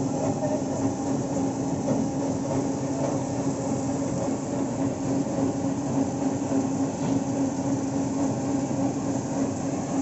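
Automatic foam-and-water bus washing machine running: a steady mechanical hum with a constant low tone under an even hiss.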